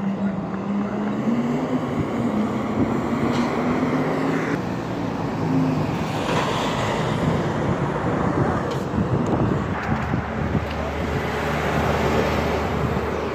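Street traffic with a heavy diesel truck engine running close by, its pitch rising slightly over the first few seconds and then holding steady, over continuous road noise.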